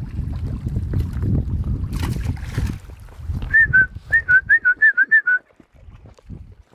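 Wind rumbling on the microphone, then a person whistling a quick run of about nine short notes that alternate between two pitches, a whistle to call the dogs.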